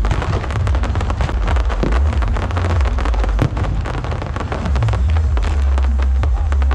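Fireworks crackling densely, many sharp pops a second without a break, over a heavy low rumble.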